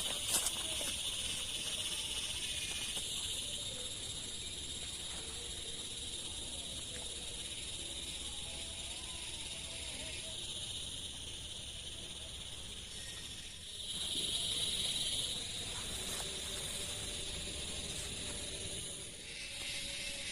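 Chorus of insects, steady and shrill, swelling louder for a second or so about two-thirds of the way through.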